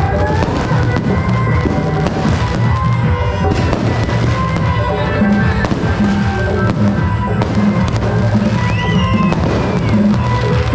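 Fireworks going off overhead: rockets whistling up, with a rising whistle near the start and again about nine seconds in, and bursting in rapid, irregular crackling bangs. Loud music with a strong bass plays underneath.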